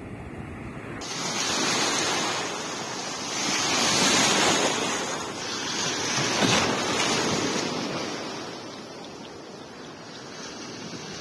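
Sea surf breaking in the shallows and washing around a wader's legs, swelling in three surges and then easing to a softer wash near the end.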